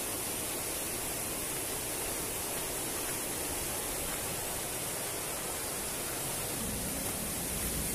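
Steady rush of a fast mountain river tumbling over boulders in a gorge, an even, unbroken noise with no distinct splashes.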